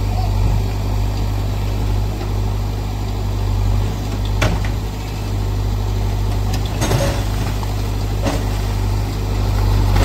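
JCB backhoe loader's diesel engine running steadily as the backhoe works. Three sharp knocks, about halfway through and twice more later, come from the bucket breaking into the brick walls.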